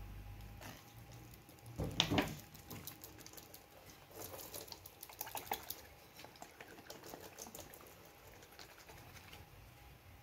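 Liquid splashing as disassembled oil pump parts are washed, loudest about two seconds in, followed by a scatter of light clicks and knocks from the parts being handled.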